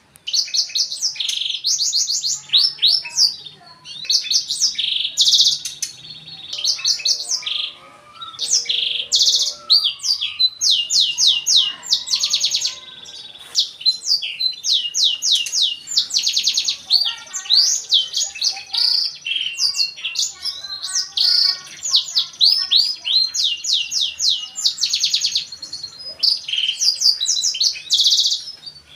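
Black-throated canary (blackthroat) singing a long, fast song of rapid chirps, sweeps and trills, with only short pauses.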